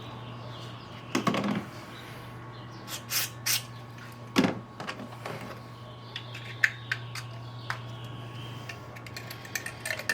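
Hand tools and metal parts clicking and knocking as they are handled while working on the engine, in scattered single strokes with the loudest about four and a half seconds in, over a steady low hum.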